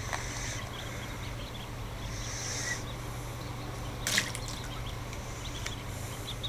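Newly hatched ducklings peeping, a steady chorus of short, high, rising chirps, over a low steady hum, with one sharp click about four seconds in.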